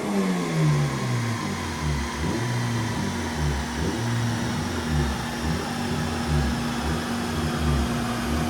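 K-series engine of a K-swapped Honda Civic EJ9 coming off throttle after a pull on a rolling-road dyno: the revs fall away over the first second or two, then it runs low and uneven while a steady hum from the dyno setup carries on underneath.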